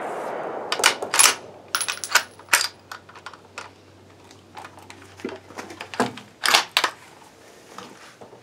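Bolt of a Savage Axis bolt-action rifle in 6.5 Creedmoor worked by hand after a shot: a run of sharp metallic clicks and clacks, then a second cluster a few seconds later. The echo of the shot fades at the start.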